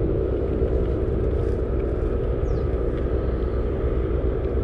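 Small fishing boat's outboard motor running steadily, a low, even drone.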